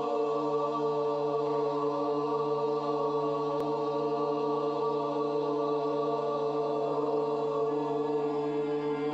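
Background meditation music: a steady drone of held, chant-like tones that does not change or break.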